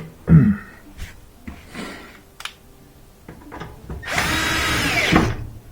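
Power drill/driver running for about a second near the end, driving in a screw to fasten the dryer's brace back on, with a loud clunk and a few lighter knocks of the brace being handled before it.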